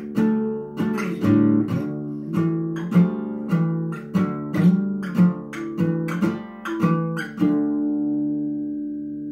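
Steel-string acoustic guitar in drop D tuning playing a riff of picked notes and chords, about two attacks a second. About seven and a half seconds in it ends on a chord that is left ringing and slowly fades.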